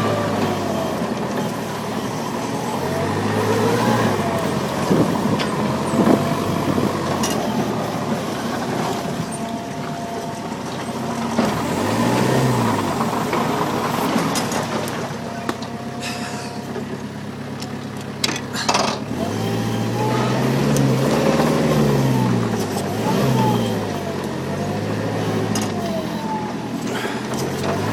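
Small site dumper's engine running and revving up and down again and again as it is driven over rough ground, with a few sharp knocks partway through.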